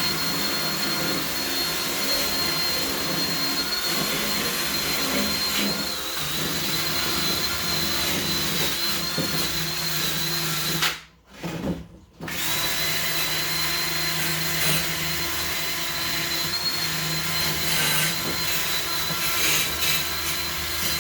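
Hand-held power drill running steadily with a high whine, scouring loose surface rust off a steel hood hinge. It stops briefly about halfway through, then starts again.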